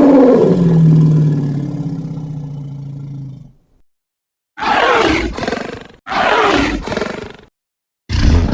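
Synthetic Spinosaurus roar sound effects. A long, loud pitched roar rises and then falls, fading away over about three seconds. After a short silence come two shorter, noisier roars in quick succession, and another begins near the end.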